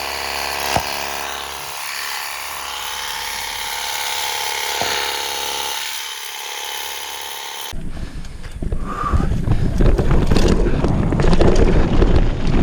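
Small battery-powered portable pressure washer running: a steady pump-motor whine over the hiss of the water spray. About eight seconds in it cuts abruptly to a louder, rougher rushing noise.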